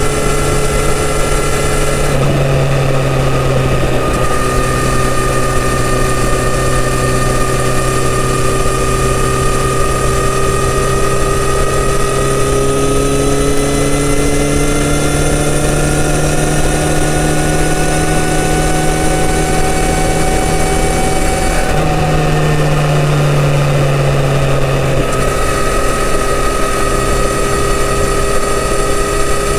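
Kawasaki Z900RS 948 cc inline-four on its stock full exhaust system, running at highway cruising speed with wind noise. The engine note shifts at about 2 s, climbs slowly in pitch over the next twenty seconds, then shifts again near 22 s.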